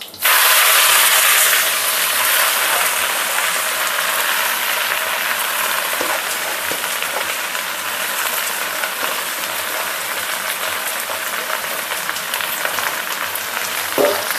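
Green leafy vegetables going into hot garlic oil in a wok and being stir-fried. A sudden loud burst of sizzling as they land settles after a second or two into a steady sizzle.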